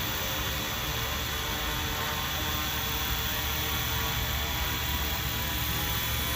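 FlyWing FW450 V3 radio-controlled helicopter, its electric motor and rotor blades running steadily as it flies itself home under return-to-home mode and lets down to land. A steady whine of many tones over a low rotor hum.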